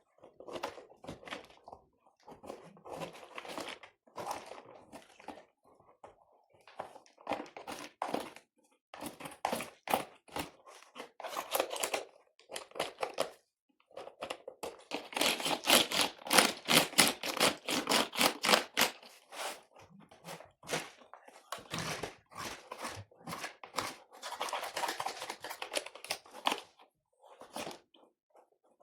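Computer keyboard being handled and cleaned: plastic keys clicking and clattering in irregular runs, densest about halfway through.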